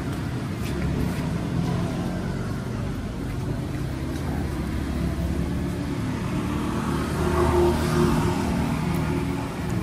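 Road traffic: a motor vehicle engine running steadily, swelling to its loudest about eight seconds in.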